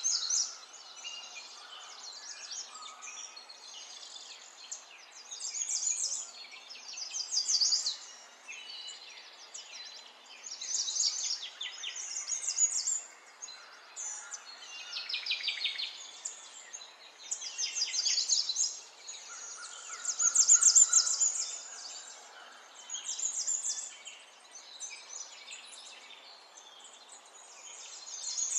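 Birds chirping and trilling in short, high bursts that come every couple of seconds.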